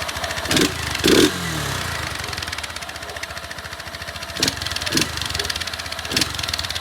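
Honda CG 160 Titan's single-cylinder four-stroke engine idling with a steady, even exhaust beat through its stock muffler, whose tip has been modified for more noise, air filter removed. A few short louder bursts cut in, the loudest about a second in, falling back to idle.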